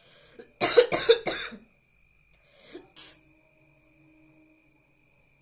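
A woman coughing from inhaled red chilli powder: three hard coughs in quick succession about a second in, then two more shortly before the three-second mark.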